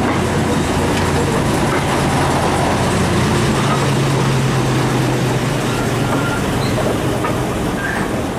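Andrew Barclay 0-4-0 diesel shunter running slowly past with two goods wagons. Its low engine note grows louder as the locomotive draws level, about four seconds in, then falls away, over the rumble of the wagons on the track.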